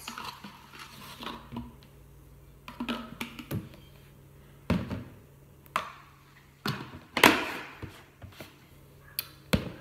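Kitchen containers and utensils being handled and set down during smoothie making: irregular taps and knocks about a second apart, the loudest about seven seconds in.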